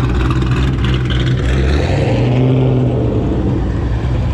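A car engine idling with a low, steady drone. Its pitch shifts slightly about halfway through.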